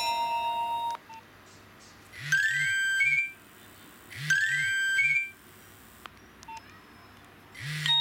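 Nokia 2310's built-in alert tones previewing through the phone's speaker as the ringtone list is scrolled. A held electronic tone cuts off about a second in. Then a short run of rising, stepped beeps plays twice, about two seconds apart.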